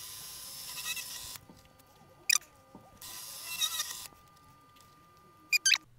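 Fast-forwarded (20×) sound of countersinking small 2.5 mm holes in a POM plate for M2 screw heads: a hissy, chattering cutting noise with a faint steady whine, in two stretches of about a second each, with a few short clicks between them.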